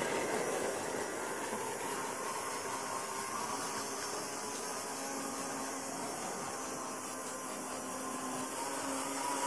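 Faller PlayTrain toy train running on plastic track: a steady mechanical whirr of its motor and wheels, fading as the train moves off around the loop and growing louder again near the end as it comes back.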